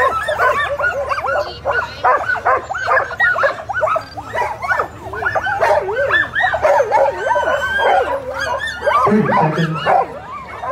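A harnessed team of racing sled dogs barking and yipping all together without a break, many voices overlapping: the eager racket of a team straining to go at the start line.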